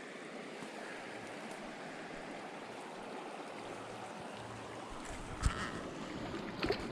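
River water running steadily, with one short knock a little over five seconds in and a few faint clicks near the end.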